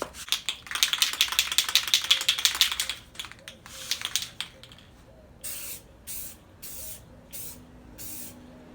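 Aerosol can of clear coat shaken, its mixing ball rattling fast for a couple of seconds, then sprayed in about five short hissing bursts as a light dusting coat on a headlight.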